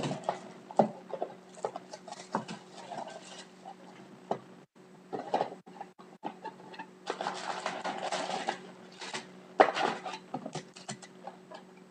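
Trading card packaging being handled and opened: rustling and crinkling of cardboard and pack wrappers, with many small clicks and taps and a longer crinkling stretch about seven seconds in.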